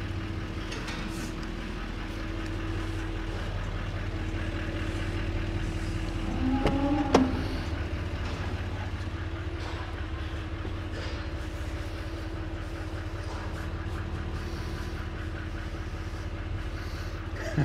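Steady low hum of a vehicle engine idling, with a brief short sound and a sharp click about seven seconds in.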